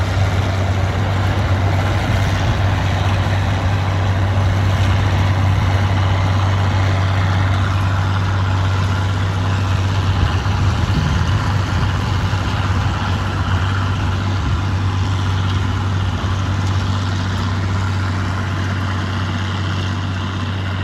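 Massey Ferguson 1100 tractor's six-cylinder diesel engine running steadily under load while pulling a trailed mower through tall grass, the mower's cutter running with it. The sound grows a little fainter near the end as the tractor moves away.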